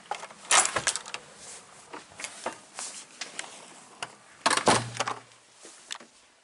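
Hotel room door being opened and let shut: clicks of the handle and latch amid rustling from the hand-held camera, with two louder knocks, one just after the start and one about four and a half seconds in.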